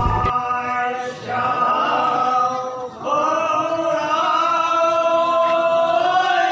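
Men's voices chanting a prayer together in long held notes, pausing briefly about a second in and again near the three-second mark.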